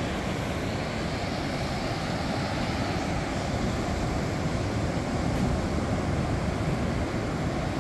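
Surf breaking on a sandy beach, a steady rush of waves washing in.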